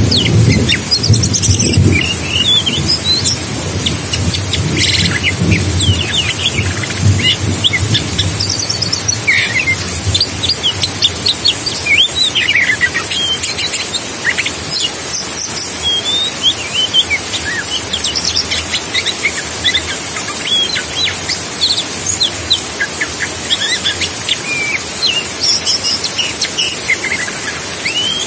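Oriental magpie-robin singing, a continuous run of varied short whistles and chirps, over a steady hiss of rain. Thunder rumbles in the first few seconds and fades away.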